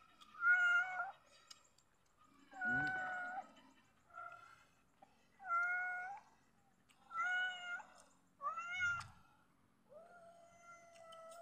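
Domestic cat meowing over and over: about seven meows spaced a second or two apart, the last one longer and drawn out.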